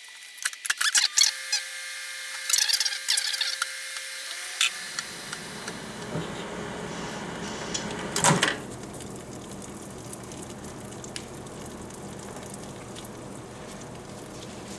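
Microwave oven started: a few sharp clicks and clatters at the door and controls, then a steady hum from about five seconds in as it runs, with one loud clunk about eight seconds in.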